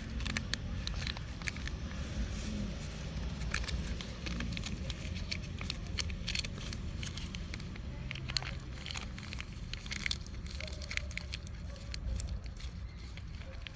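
Two tabby cats eating, with many small, irregular crunching clicks of chewing over a steady low rumble.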